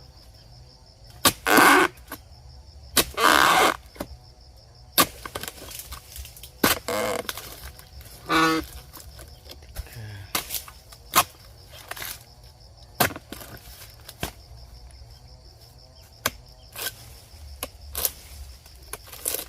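Oil palm harvesting: a series of sharp chopping strikes of a harvesting blade against a palm's fronds and bunch stalks, with several longer crashing, rustling sounds in between as cut fronds or bunches come down. A steady high insect buzz runs underneath.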